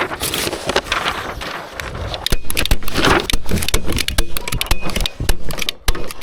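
Wind buffeting the microphone in low gusts, with many irregular sharp clicks and rattles from handling or setup work.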